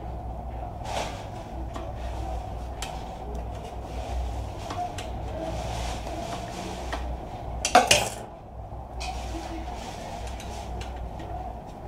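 Screwdriver working the screws of a PC power supply's sheet-metal case, with scattered metallic clicks and scrapes and one louder metal clatter about eight seconds in, over a steady hum.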